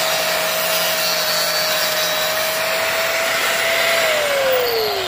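Electric angle grinder with a worn-down cut-off wheel running at full speed, cutting through a rusted exhaust flange bolt on the catalytic converter, then switched off about four seconds in and winding down with a falling whine.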